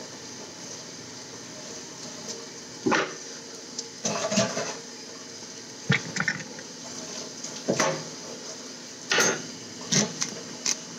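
Kitchen clatter as a knife is handled and knocks against a cutting board while the ends of a banana are cut off: scattered sharp knocks and clinks at irregular intervals over a steady faint background noise.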